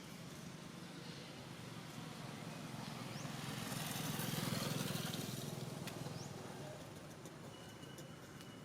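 A motor vehicle passing by, growing louder to a peak about halfway through and then fading away, with a few short high chirps now and then.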